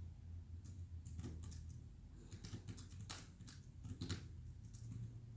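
Faint, irregular small clicks and taps, a dozen or so scattered through the pause, over a low steady hum.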